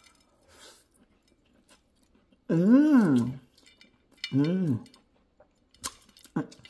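A woman chewing a mouthful of food with faint wet mouth clicks, humming "mmm" twice with her mouth closed, each hum sliding up and then down in pitch, the sound of someone enjoying what she is eating.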